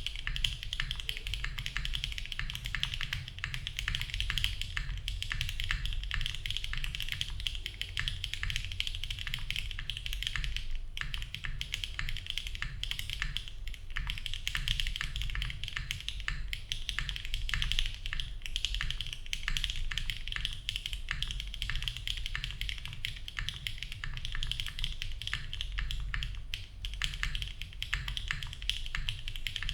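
Continuous typing on a Cycle7 mechanical keyboard with HMX Xinhai switches, an aluminium plate, no foam and GMK Firefly keycaps: a dense, steady stream of key clacks with a low thud under each stroke.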